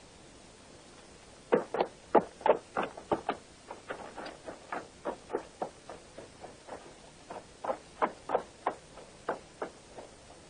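Horses' hooves clopping at a walk: a run of irregular knocks, about three a second, starting a second and a half in.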